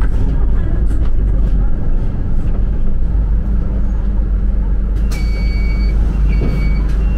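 A TransJakarta city bus's engine and road noise, heard from inside the cabin as a steady low rumble while the bus drives. About five seconds in, two electronic beeps sound, the first longer than the second.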